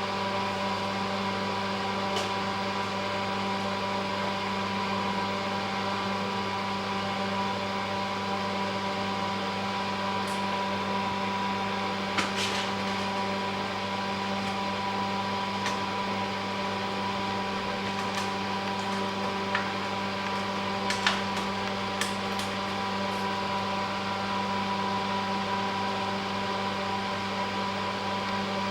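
Steady electrical hum from workshop machinery running, with a few light clicks and taps scattered through it.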